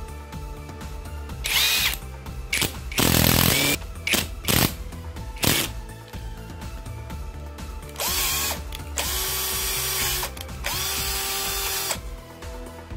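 Aimsak 14.4V cordless drill's motor run three times in short bursts of about a second each in the second half, spinning up and winding down each time, with a few sharp knocks before. The drill is driving the replacement chuck tight onto its threaded spindle. Background music throughout.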